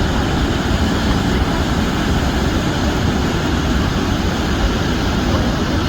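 Niagara Falls: a loud, steady rush of falling water, deepest and heaviest in the low end, with no breaks or changes.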